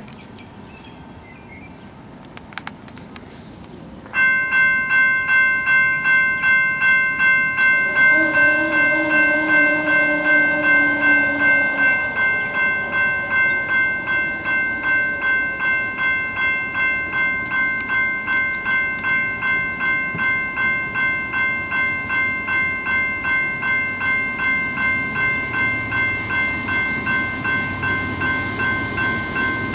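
Railroad grade-crossing warning bell starts suddenly and rings steadily at about two strokes a second. About eight seconds in, a lower tone sounds for about four seconds. The low rumble of the approaching train begins to grow near the end.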